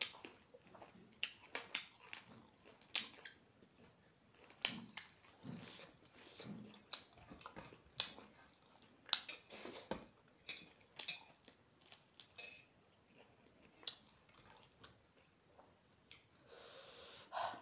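Close-up chewing and mouth sounds while eating fried pork and rice: irregular wet smacks and clicks a few times a second. A breathy hiss comes near the end.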